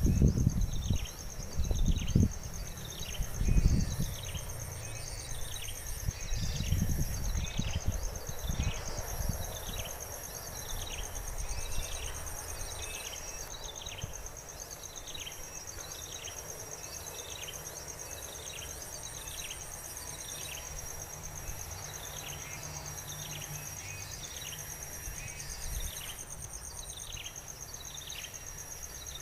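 Outdoor insect chorus: a steady high-pitched insect drone with a short falling chirp repeating a bit more than once a second. Low thumps and rumbles sound in the first few seconds, then fade.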